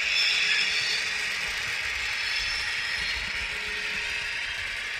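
H0-scale model train of hopper wagons and a diesel locomotive rolling along the track and over points: a steady rattling clatter of small wheels on the rails, a little louder about the first second.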